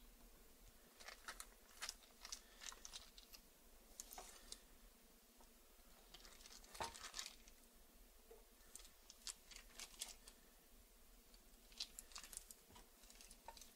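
Faint, scattered clicks and crinkles of a kitchen knife slicing a block of cream cheese on its foil wrapper, coming in short clusters every few seconds as each cut is made.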